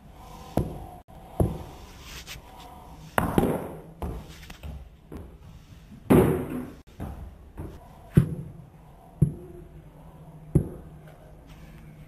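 Wooden cricket bat hitting a ball, with the ball bouncing on a hard tiled floor: about seven sharp knocks at uneven gaps.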